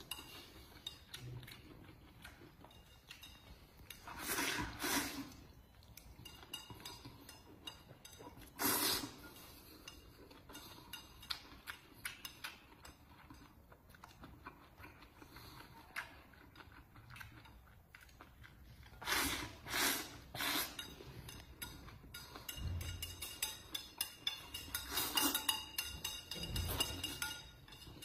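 Chopsticks clicking and scraping against a ceramic plate as rice is scooped up and eaten, with a few louder bursts of eating noise scattered through.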